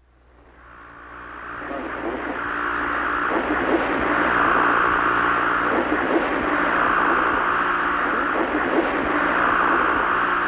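Static hiss from a CRT television tuned to no signal, fading in over about two seconds and then steady, with a slow swell and ebb and a faint low hum beneath.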